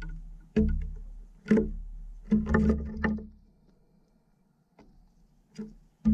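Eurasian jay knocking on the wooden feeder tray, close to the microphone: a run of sharp, hollow knocks with a low thump, several close together in the first three seconds, then a few fainter ones near the end.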